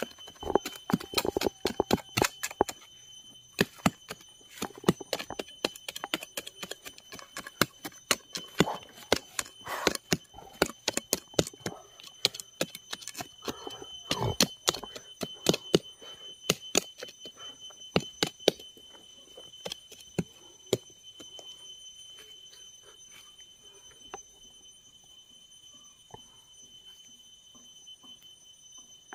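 A knife blade repeatedly stabbed into dry, stony soil to dig a planting hole: an irregular run of sharp knocks and scrapes that thins out over the last several seconds, with two steady high tones throughout.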